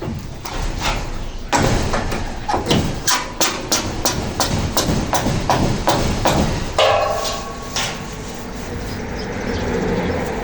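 Hammering during roof construction: a run of sharp, regular hammer blows, about three a second, starting a second and a half in and stopping about seven seconds in.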